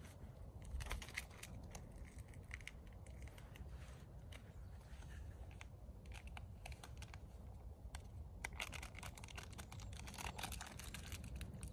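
Faint, irregular small clicks and rustling, a little busier near the end, over a low background rumble.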